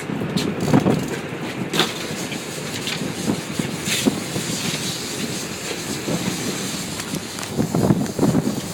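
Boat running at sea: a steady engine and wind rumble on the microphone, broken by several sharp knocks.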